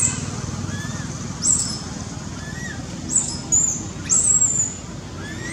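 Baby macaque giving short, high-pitched squeaks and squeals, several in a row at irregular intervals, typical of an infant's distress or begging cries while held by its mother.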